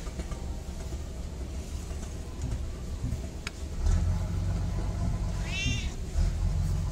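A house cat meows once, short and high, about five and a half seconds in. Under it, a low rumble grows louder from about four seconds in.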